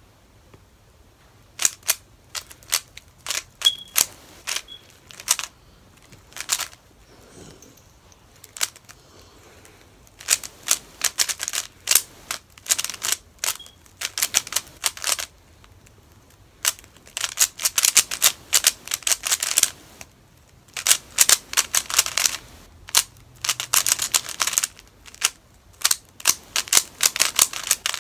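Rapid clicking of a 3x3 speedcube's plastic layers being turned by hand during a solve, starting about a second and a half in. The turns come in fast flurries of clicks broken by short pauses.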